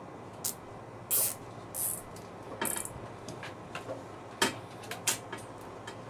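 Nylon cable ties being pulled tight around wiring: a few quick zips, then a rapid ratcheting run about two and a half seconds in, and a couple of sharp clicks from handling the ties and wires, over a steady background hiss.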